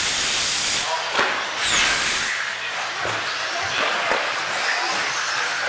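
Several 2WD radio-controlled racing trucks running together, their motors whining up and down in pitch as they accelerate and brake. A strong hiss comes twice in the first two seconds.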